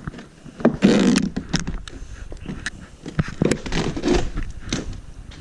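Fabric and padding being ripped off a wooden window treatment by hand: irregular tearing and scraping with sharp clicks, the longest rip about a second in and a cluster of rips near the end.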